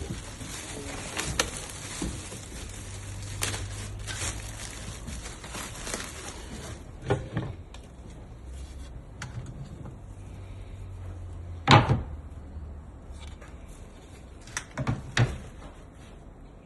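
Scattered knocks and clacks of a tool cart's drawers and boxes being opened, shut and moved about. The loudest knock comes about twelve seconds in, with a short cluster near the end, over a faint low hum.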